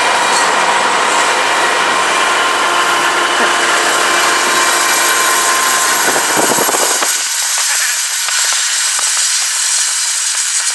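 Loud, steady rushing noise from a car driving alongside a moving BNSF freight train: wind and road noise mixed with the train's running sound. About seven seconds in, the deep rumble cuts out suddenly, leaving a thinner hiss.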